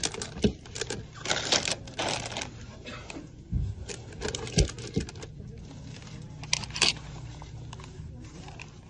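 Small packaged items being handled and set down: plastic packaging rustling, with irregular clicks, taps and a couple of heavier thumps.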